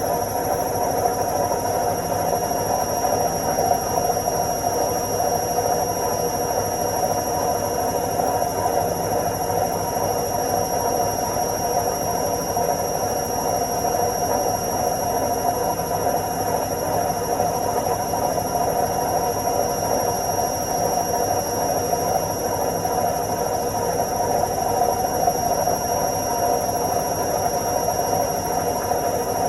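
Washing machine in its spin cycle: the drum spinning at a constant speed with a steady whirring hum and a thin high tone above it, unchanging throughout.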